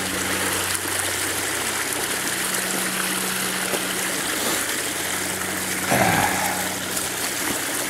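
Creek water running steadily through open water in the ice at a beaver dam.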